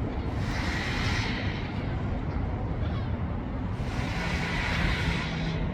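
Wind buffeting the microphone, a constant uneven low rumble, with two longer hissing gusts, one about a second long near the start and another in the second half.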